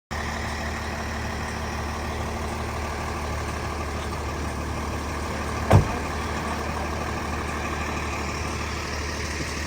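Vehicle engine idling steadily, with one sharp knock just past the middle.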